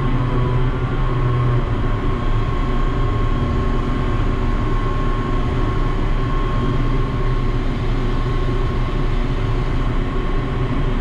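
Ship's deck crane machinery running steadily, a low drone with a steady high whine over it.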